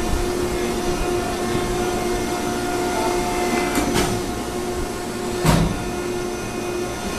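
Baler running with a steady hum, with a short knock about four seconds in and a louder thump about a second and a half later.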